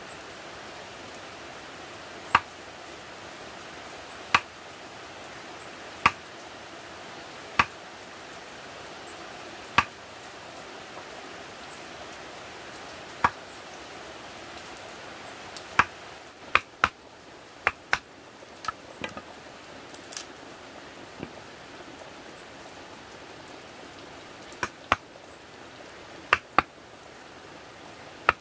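Mallet blows on a chisel cutting a notch into a green bamboo pole, sharp single knocks about every two seconds at first, then quicker runs of taps in the second half, over a steady background hiss.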